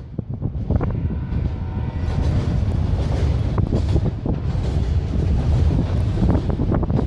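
Autorack freight cars rolling past close by: a heavy, steady low rumble of steel wheels on rail with scattered clacks, and wind buffeting the microphone.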